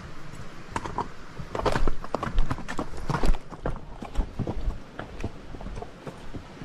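A horse's hooves striking the trail as it picks its way downhill, in uneven, irregular footfalls that are loudest and most frequent between about two and three and a half seconds in.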